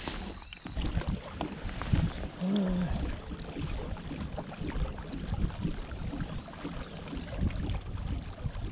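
Water splashing and lapping against the hull of a moving kayak, with wind buffeting the microphone.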